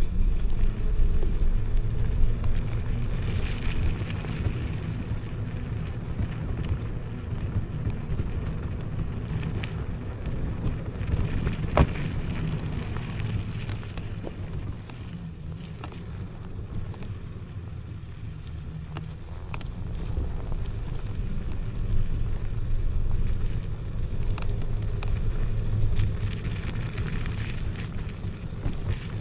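Wind rumbling on the microphone over the rolling noise of an electric scooter ridden off-road on a rough forest track, with scattered knocks and rattles from bumps, one sharper knock about halfway through.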